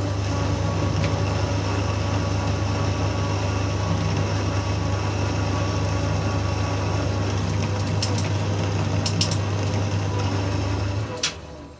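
Small Dunford Viceroy lathe running with a steady motor hum during an internal screw-cutting pass in a chuck backplate bore, cut with a home-made boring-bar threading tool. A few sharp clicks come near the end, and then the motor is switched off and the hum dies away about a second before the end.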